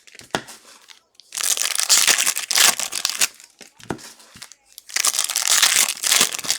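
Foil trading-card pack wrappers crinkling as they are handled and torn open, in two long bouts of crackling.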